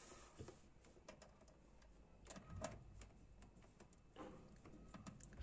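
Near silence with a few faint clicks and scrapes as small screws are set into the plastic pulsator of a top-loading washing machine.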